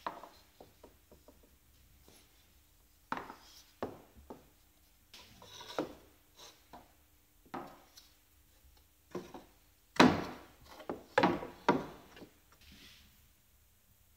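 Handling noise: irregular knocks and scrapes as black angled rod pieces are picked up, moved and set down on a board. The loudest cluster of knocks comes about ten to twelve seconds in.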